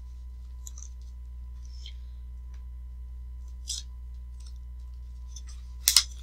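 Paper note pages being handled and turned: scattered faint rustles and light clicks, a short crackle of paper about midway, and a sharp double snap near the end as a page flips over. A steady low electrical hum runs underneath.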